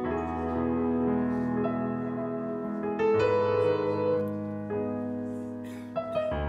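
Playback of an already-mixed pop song carrying a great deal of reverb, in its instrumental part before the vocal comes in. Sustained chords change about every three seconds.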